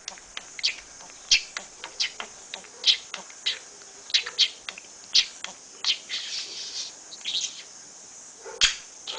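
Budgerigar chirping: a run of short, sharp, high chirps about two a second, with a brief stretch of warbling chatter around six to seven seconds in.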